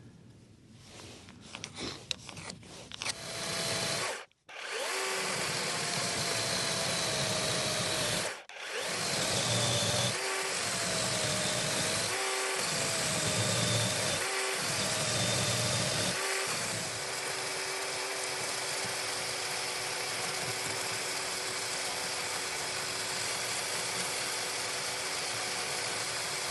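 A handheld power tool running under load in long stretches, working the oak rails of the rack, with its pitch wavering as it bites. It stops briefly several times in the first half, then runs on without a break; a few light knocks come before it starts.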